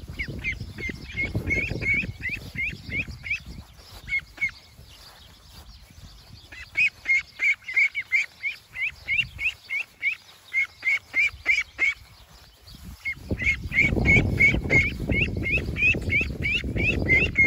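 Young ducks peeping: quick strings of short, high, bent peeps, about four a second, in bouts with brief pauses. A low rushing noise lies underneath at the start and again over the last few seconds.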